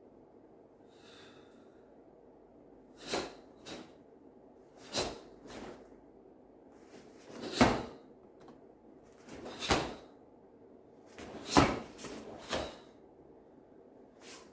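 A karate gi snapping and swishing with the sharp strikes and blocks of a kata. There are about nine short, sudden sounds, some in quick pairs, and the loudest three come about two seconds apart in the second half.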